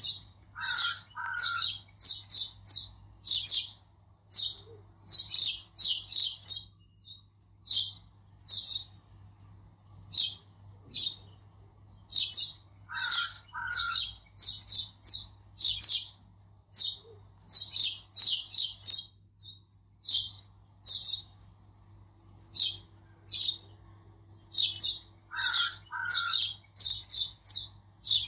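Small birds chirping in quick runs of short, high chirps, with a lower two-note call coming back about every twelve seconds.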